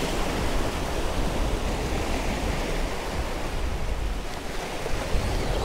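Surf washing and breaking against the jetty's rock blocks, a steady rushing, with wind rumbling on the microphone underneath.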